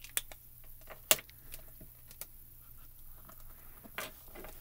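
Light plastic clicks and taps of hands working small stamping tools: a mini ink cube handled over the stamp, with one sharp snap about a second in, then a few knocks near the end as the clear door of a stamp-positioning tool is brought down and pressed onto the card.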